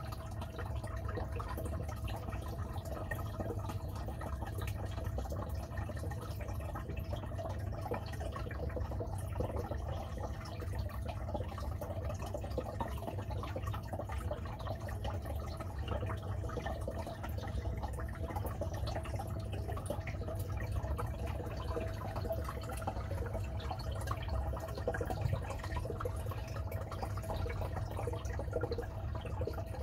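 Aquarium filter running in a turtle tank: water trickling steadily, over a steady low hum.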